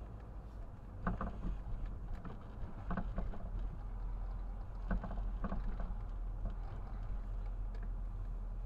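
Car interior road noise picked up by a dashcam: a steady low rumble of the car driving slowly, with a few short knocks about one, three and five seconds in.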